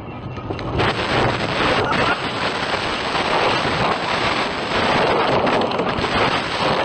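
A car running off the road and crashing: a loud, continuous rough rumbling and rushing noise with scattered knocks starts about a second in and goes on to the end.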